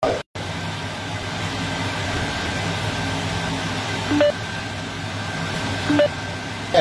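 Steady low appliance hum with a hiss in a small kitchen, with two short beeps about four and six seconds in.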